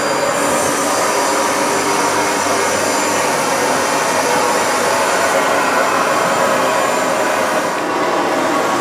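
Steady hiss of steam from a standing class 19D steam locomotive.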